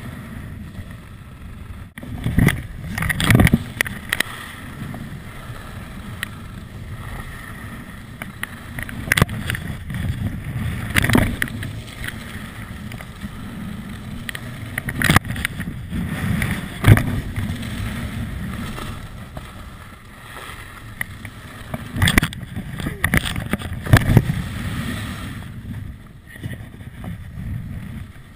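Skis running fast over groomed snow, with wind rushing over the camera's microphone and sharp scrapes of the edges at irregular turns every few seconds.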